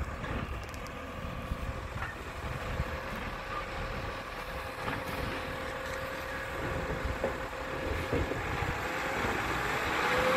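Garbage truck's engine running as the truck approaches, growing louder toward the end, with a steady whining tone above the rumble.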